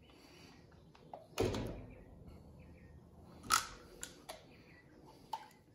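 Plastic water bottles being handled: a few separate sharp crinkles and knocks, the loudest about a second and a half in and another about halfway through.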